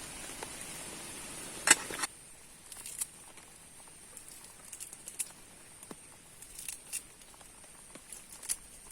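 Irregular light taps and drips of rain, with a louder knock near two seconds in, over a steady high hiss.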